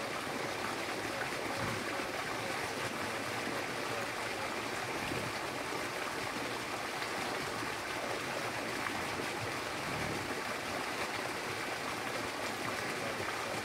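Irrigation water pouring steadily from a pipe outlet into a channel: a constant rushing, splashing noise with no change in level.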